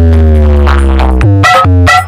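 Loud electronic DJ remix with a deep sustained bass note under a synth tone that slides slowly downward. About a second and a quarter in, the bass drops out and two sharp hits follow.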